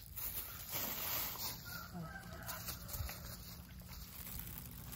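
A chicken calling faintly, with a few short pitched calls about two seconds in, over a steady outdoor background hiss.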